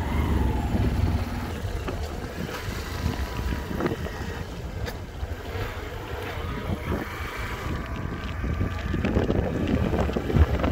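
Wind buffeting the microphone of a moving motorcycle, with the engine running underneath.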